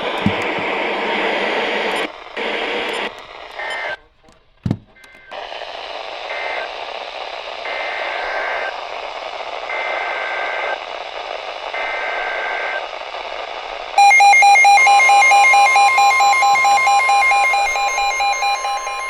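Radio hiss with brief dropouts, then three faint one-second bursts of EAS SAME digital header tones. About fourteen seconds in, the loud Emergency Alert System two-tone attention signal starts, a steady dual tone that announces the next warning.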